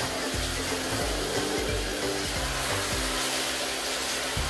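Handheld shower head spraying water onto a dog's coat, a steady hiss, with background music underneath.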